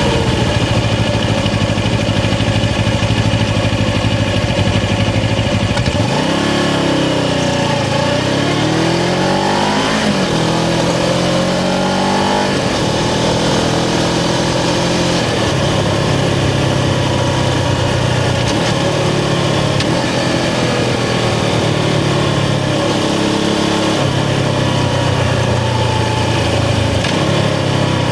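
Suzuki GS500 parallel-twin motorcycle engine heard from the rider's seat: running steadily for about six seconds, then accelerating away with its pitch climbing in several sweeps as it goes up through the gears, and settling to a steady cruising note about halfway through.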